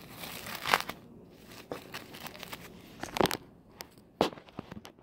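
A disposable overnight sanitary pad being torn open by hand: its plastic backing and padding crinkle and rip in short, irregular bursts, the loudest about a second in and again around three and four seconds in.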